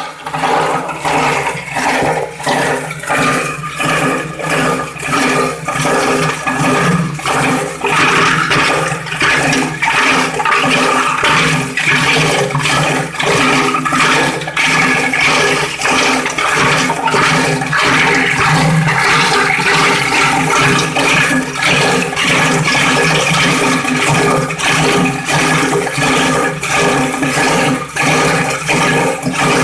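Plastic recycling grinder (crusher) running loud and steady as it chops plastic, with a regular pulse about twice a second.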